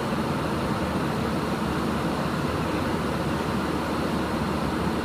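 Steady, even rushing noise of an aircraft cockpit in flight: airflow and air-conditioning hiss.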